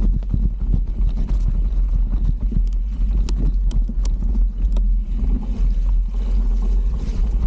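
Mountain bike riding downhill over rough trail: constant wind rumble on the microphone and the bike rattling, with a few sharp knocks about halfway through.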